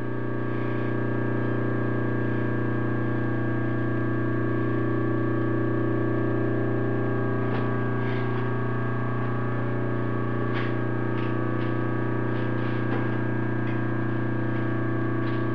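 Steady electrical hum of shop machinery, a constant low buzz made of several fixed tones. A few faint light clicks come about halfway through.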